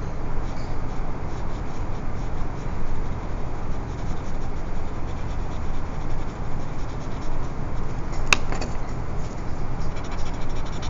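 Graphite drawing pencil (4B) shading on paper: a steady rubbing scratch of quick, short strokes. A single sharp click sounds about eight seconds in.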